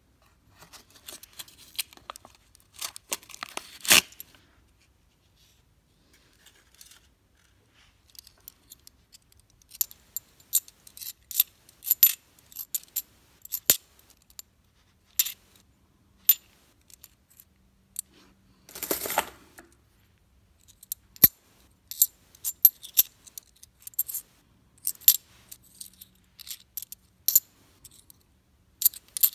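A roll of clad Kennedy half dollars being opened, with paper wrapper rustling and a sharp click over the first few seconds. Then, after a short pause, the coins clink against each other one at a time as they are pulled from the stack in a palm, with a brief scraping rustle a little past halfway.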